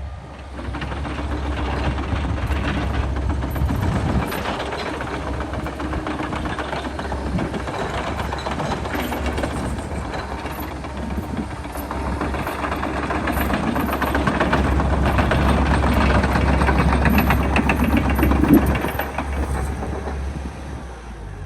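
Doosan DX140LCR-5 excavator running: a steady diesel engine drone under a dense rattling clatter that swells and eases, peaks near the end, then dies down.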